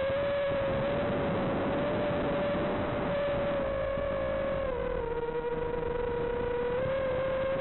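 FPV quadcopter's motors and propellers whining in flight, picked up by the drone's onboard microphone, with wind noise underneath. The pitch dips about five seconds in and climbs back near the end as the throttle changes.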